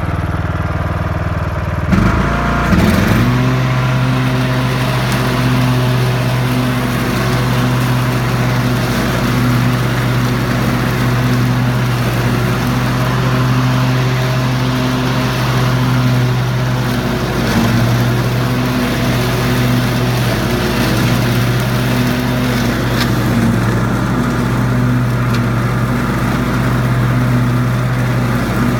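Mower engine speeding up about two seconds in, then running steadily under load while cutting tall grass, its note sagging briefly a little past the middle.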